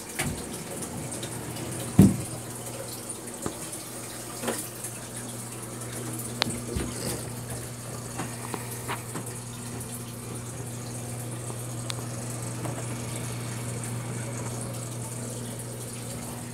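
Water trickling and splashing from a homemade canister filter's return into the tank's pool, over a steady low hum from the filter pump. A sharp knock about two seconds in and a few lighter clicks.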